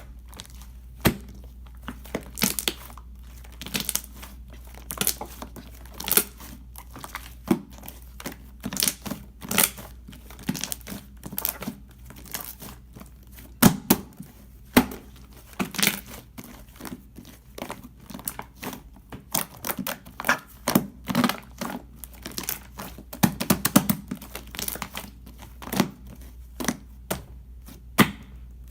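Irregular crinkling and crackling: many sharp crackles, a few a second, some much louder than others, as something is crumpled or torn close up.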